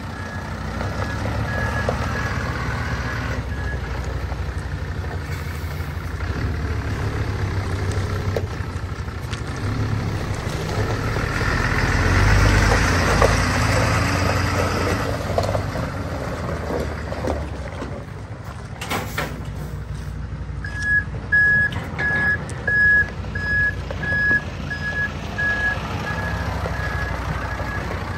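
MAN tipper truck's diesel engine running as it drives across gravel, growing louder about halfway through. Its reversing alarm beeps steadily at the start and again over the last third, with a short burst of air-brake hiss just before the second run of beeps.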